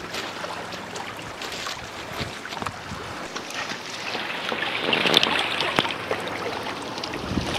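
Small waves lapping and washing over a rocky shoreline, with wind on the microphone; the wash swells louder about five seconds in.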